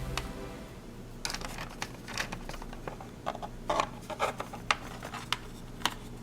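Small plastic toy pieces being handled: scattered light clicks and taps with some rubbing.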